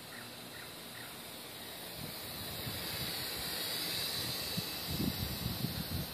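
WLtoys V959 quadcopter's small electric motors and propellers whining in flight, the whine swelling and bending up in pitch then back down around the middle.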